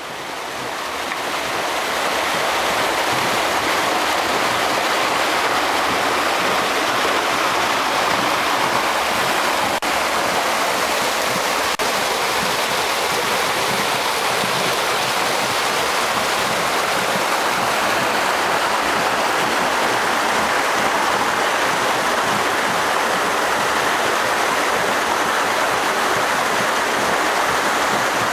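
Creek water rushing over and between boulders in a small cascade: a steady rush that builds over the first couple of seconds and then holds.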